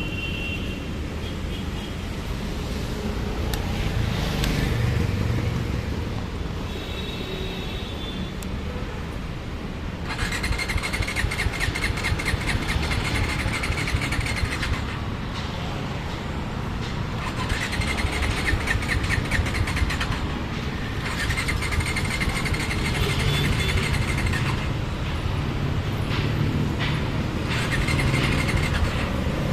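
Bajaj Dominar 400's starter motor cranking its single-cylinder engine in four bursts of a few seconds each, starting about a third of the way in, without the engine catching: a motorcycle that won't start. A steady low rumble runs underneath.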